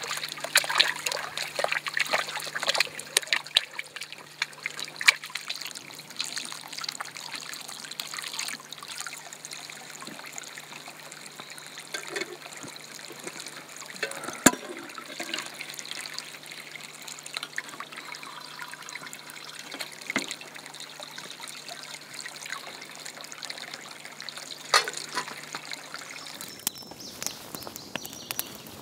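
Water splashing and trickling in a stock water tank as hands wash in it and a metal coffee pot is filled, with a run of small splashes and knocks in the first few seconds and single sharp ones later. A faint low hum runs underneath and stops near the end.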